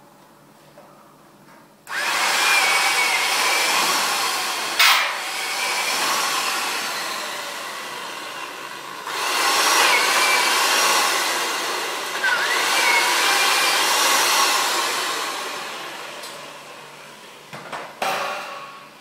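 A loud, steady rushing hiss starts abruptly about two seconds in, dips and swells again about halfway through, then fades out near the end. A sharp knock comes about five seconds in, and a couple more knocks come near the end.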